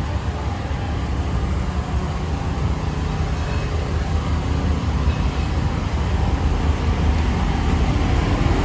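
Passenger jeepney's diesel engine idling while stopped: a steady low rumble that grows gradually louder.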